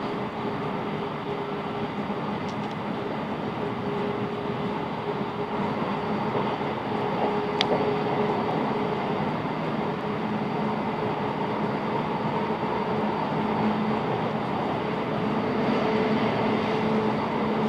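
A Class 707 Desiro City electric multiple unit running at speed between stations, heard from inside the carriage: a steady rumble of wheels on track with a faint, steady electric motor hum, and a single sharp click about eight seconds in.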